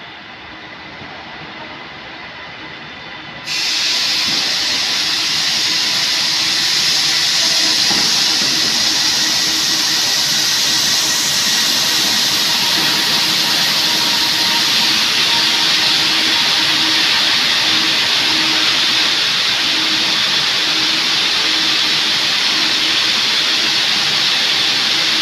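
A TransPennine Express Class 397 electric multiple unit running into the platform and slowing. Its sound is a steady loud hiss that jumps suddenly louder about three and a half seconds in, with faint steady electric tones under it.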